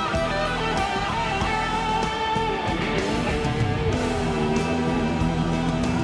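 Rock music led by guitar, with sustained notes over a steady backing.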